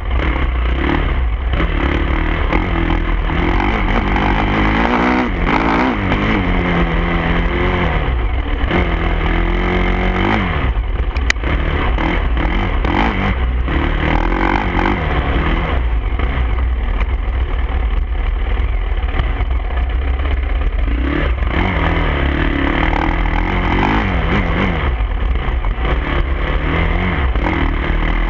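Dirt bike engine revving up and dropping back again and again, its pitch climbing and falling as the bike rides over rough ground, over a steady low wind rumble on the microphone.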